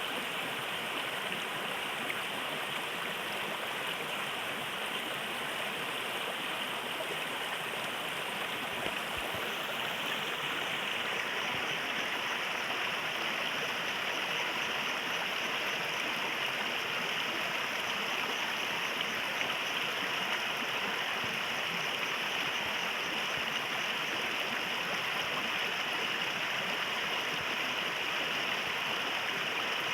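A river stream flowing: steady rushing and gurgling of running water.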